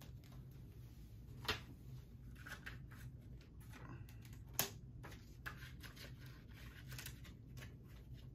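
Plastic Blu-ray case being handled: scattered soft clicks and rustles, with two sharper clicks about a second and a half and four and a half seconds in, over a low steady hum.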